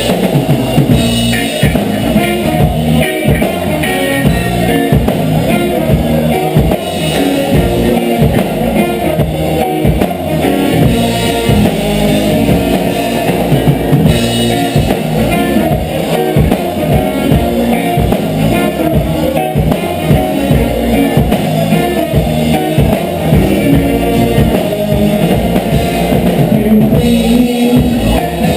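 Reggae band playing a dub tune, with drum kit, guitar and heavy bass going steadily throughout.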